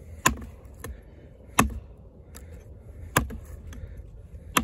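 Kobalt 14-inch camp axe chopping into a branch on a chopping stump: four sharp strikes about a second and a half apart as the steel head bites into the wood.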